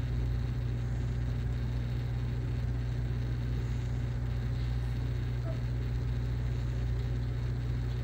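Egg incubator running with a steady low hum.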